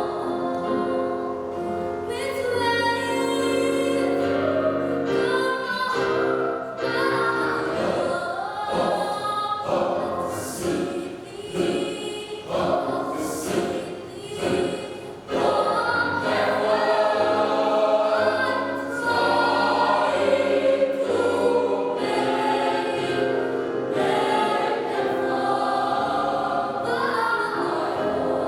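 Church youth choir singing in harmony, with sustained chords. The sound drops to a quieter, more broken passage about a third of the way in, then swells back to full voice past the middle.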